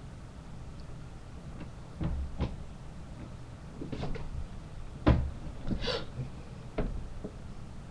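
A few dull knocks and bumps from someone moving about close to a webcam microphone, the loudest just after five seconds in, over a low steady hum.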